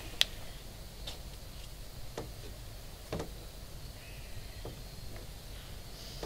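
A few faint, sharp clicks and light taps, spaced irregularly about a second apart, over a low steady background rumble.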